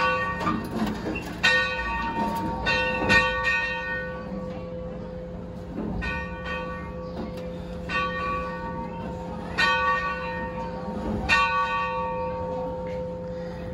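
Steam locomotive's cab bell rung by hand with its pull cord: about seven clangs at uneven intervals of one to two seconds, each one ringing on and fading before the next.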